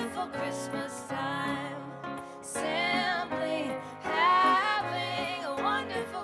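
Live band music: voices singing a slow, gliding melodic line over a band with acoustic guitar and bass notes.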